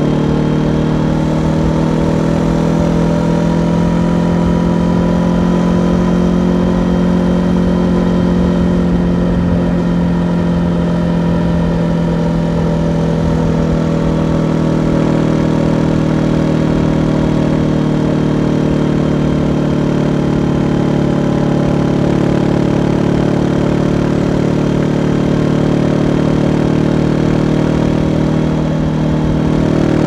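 Honda CB500F's parallel-twin engine running through its stock exhaust at a steady cruise, the pitch holding nearly constant, with a brief easing in level shortly before the end.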